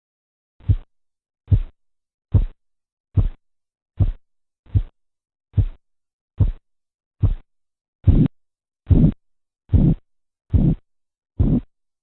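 Korotkoff sounds heard through a stethoscope as the blood-pressure cuff deflates: silence, then sharp taps, one about every 0.8 seconds, starting about half a second in. The first tap marks the systolic pressure. From about eight seconds in the beats become longer and louder.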